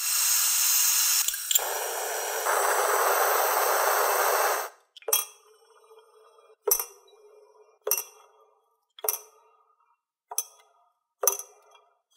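A steady hiss for about five seconds that stops abruptly. Then about half a dozen sharp clinks, roughly a second apart: small hot steel parts dropped one by one into a glass jar of engine oil, striking the glass as they are quenched for hot bluing.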